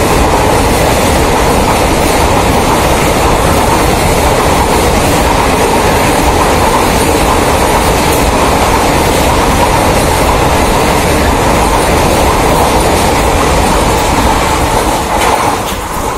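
Long-distance passenger express train running through a station platform at speed: a loud, steady rush of wheels and coaches passing close by, which tails off as the last coaches go past near the end.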